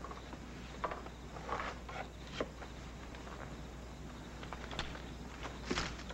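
Scattered footsteps and scuffing on dirt and a wooden ladder while a body is carried down, with a few sharper knocks, the strongest near the end, over a steady low hum.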